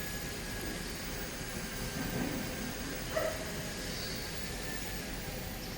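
Steady factory-floor background noise with faint distant workshop sounds, and one short sharp sound about three seconds in.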